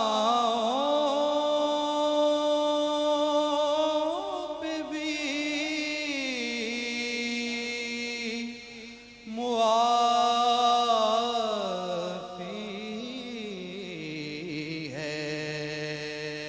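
A man sings Urdu devotional verse (hamd) solo into a microphone, drawing out long, ornamented held notes. He breaks briefly about halfway through, then carries on at a lower pitch near the end.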